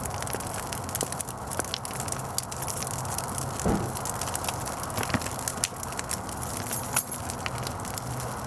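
Bonfire in a fire pit, with many sharp crackles and pops over a steady rushing noise. There is one duller, low knock a little before halfway.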